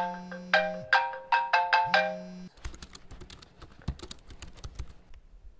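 iPhone alarm ringing, a repeating pattern of chiming notes over a low buzz in pulses, cut off abruptly about two and a half seconds in as the alarm is dismissed. Faint clicks follow.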